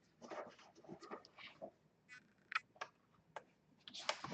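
Scattered light clicks and taps of hard plastic being handled, with a little faint rustling in between.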